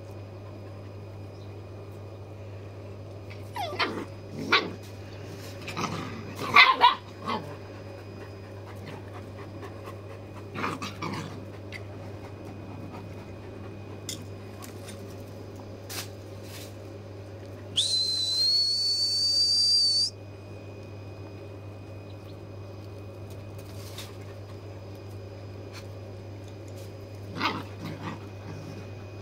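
Puppies yelping and barking in short bursts during play, loudest about six to seven seconds in, with a few more near the end. A steady high whistle of about two seconds comes about two-thirds of the way through, over a constant low hum.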